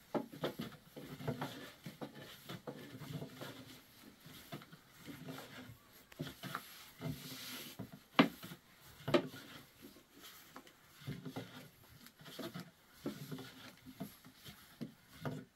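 Irregular knocks, taps and rubbing of things being handled, with two sharper knocks about eight and nine seconds in.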